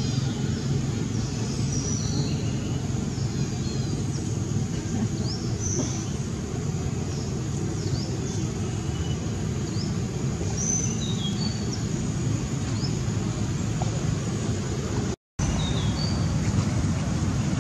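Outdoor ambience: a steady low rumble with scattered short bird chirps high above it. The sound cuts out for a moment about fifteen seconds in.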